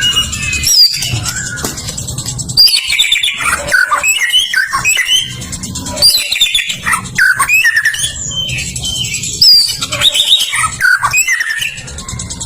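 White-rumped shama (murai batu) singing a rapid, varied song of whistles, chirps and quick rising and falling notes, over a low rumble.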